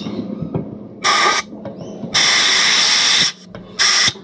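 Compressed-air blow gun fired into the tube bundle of a boat engine heat exchanger in three hissing blasts: a short one about a second in, a longer one of about a second from two seconds in, and a short one near the end. The air is blown through the tubes to test whether they are clear of blockage.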